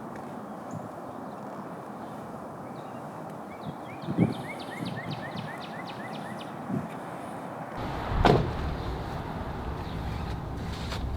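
Outdoor background noise with a bird's quick series of short rising chirps, about three a second, around four to six seconds in. Two dull thumps fall in the same stretch, and about eight seconds in there is a louder sharp thud, after which a low rumble sets in.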